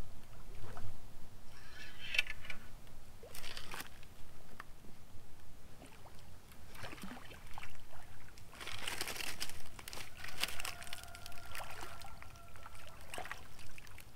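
A small blue catfish splashing at the surface as it is reeled in to the bank, the splashing loudest about two thirds of the way through.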